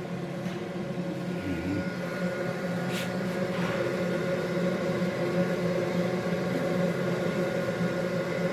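Viessmann Vitopend 100 wall-hung gas boiler running with its three-way valve freshly cleaned: a steady hum with several held tones, and a faint click about three seconds in.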